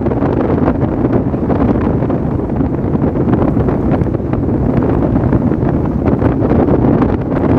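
Strong wind buffeting the microphone: loud, steady wind noise with a low rumble.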